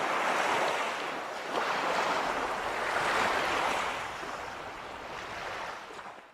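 Rushing water sound effect, a surf-like hiss that swells and eases, fading out near the end.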